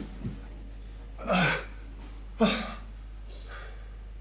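A man's strained gasps and groans, the two loudest about a second and a half and two and a half seconds in, each falling in pitch, over a low steady hum.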